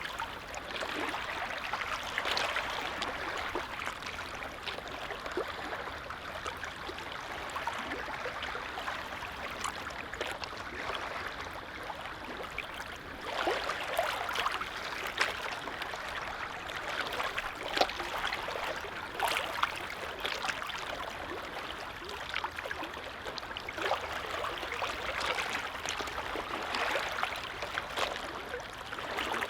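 Small waves on a calm lake lapping: a steady watery wash with frequent little splashes.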